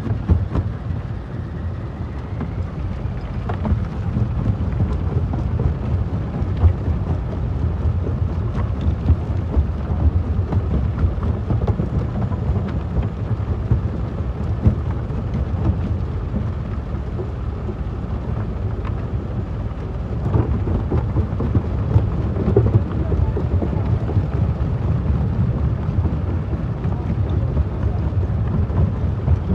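Jaw crusher crushing stone: a steady low rumble with scattered sharp cracks of breaking rock.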